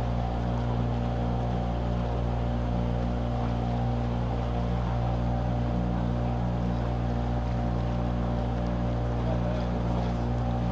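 A boat's engine running steadily while underway: a constant drone whose pitch and loudness do not change.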